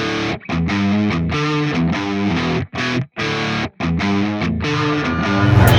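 Distorted electric guitar playing chords in a song intro. The guitar stops dead several times in short gaps, and a rising build swells near the end.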